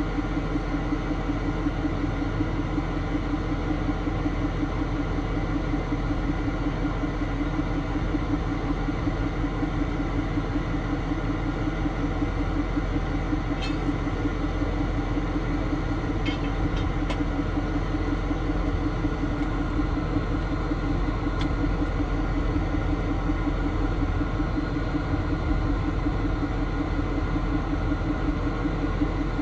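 Tow truck's engine running steadily, a continuous low mechanical hum, with a few faint clicks around the middle.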